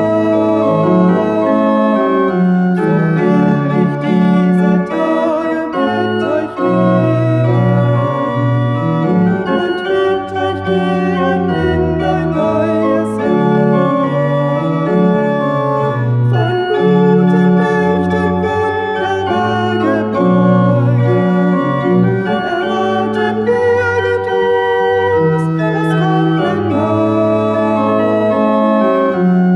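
Pipe organ playing sustained chords that change every second or so, accompanying a woman singing a hymn.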